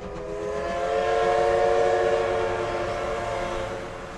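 Steam whistle of the C11 325 tank locomotive giving one long blast of about four seconds, fading toward the end, as the train pulls away.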